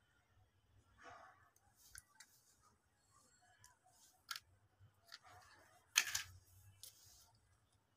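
Faint, scattered clicks and short scratchy rustles of handling and movement, the sharpest about six seconds in.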